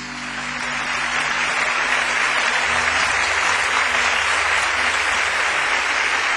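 Audience applauding after the song ends, swelling over the first second and then holding steady.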